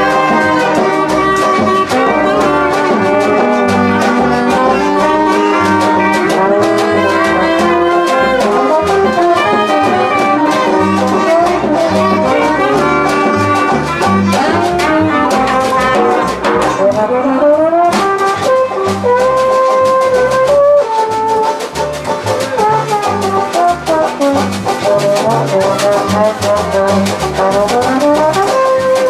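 Brass band playing jazzy music live, trumpets and trombones together, with a trombone sliding up about halfway through and sliding down near the end.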